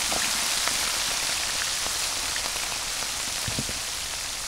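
Small freshwater shrimp and tiny fish deep-frying in a wok of hot oil, just added to the pan: a loud, steady sizzle with scattered small pops and crackles, easing off slightly toward the end.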